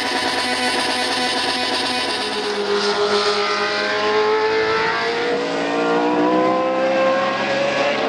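A racing engine running hard, its note slowly climbing in pitch from about three seconds in.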